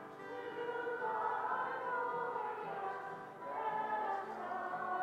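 A group of children singing a hymn together, accompanied by a strummed acoustic guitar.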